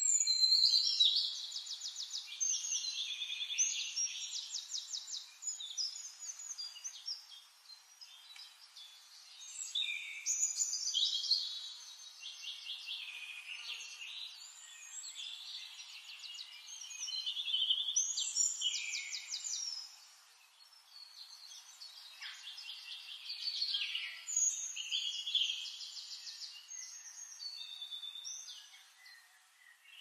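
Forest songbirds singing: overlapping rapid trills and high chirps, swelling into louder song phrases every several seconds with quieter chirping in between.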